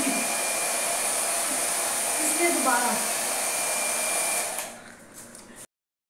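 Handheld electric hair dryer blowing steadily, a rushing air noise with a constant high whine, which dies away about four and a half seconds in.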